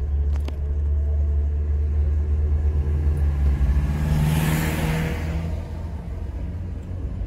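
Car engine rumbling steadily while driving, with a Renault Clio hatchback overtaking close by about four seconds in: its engine note rises and a rush of tyre and wind noise swells and then fades.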